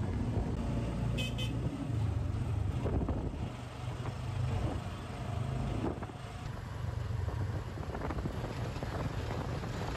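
Motor vehicle running steadily with a low engine rumble and road noise, heard from inside the vehicle; a horn gives two short toots about a second in.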